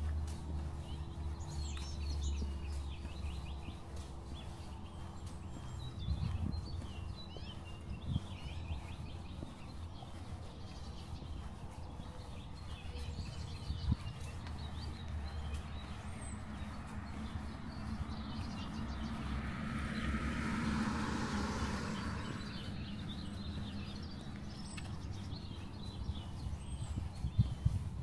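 Small songbirds chirping on and off over a low background rumble of the neighbourhood. About two-thirds of the way through, a passing vehicle swells and fades over a few seconds.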